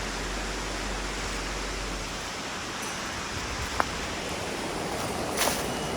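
Steady rush of a mountain river flowing through a gorge. A faint click comes about four seconds in, and a brief scrape follows near the end.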